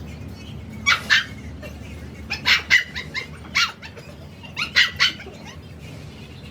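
A dog barking, in short bouts of one to three barks over a few seconds.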